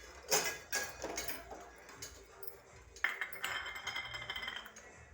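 Kitchen utensils clinking and knocking as ground herb juice is strained through a small strainer; a sharper knock about three seconds in rings on for about a second.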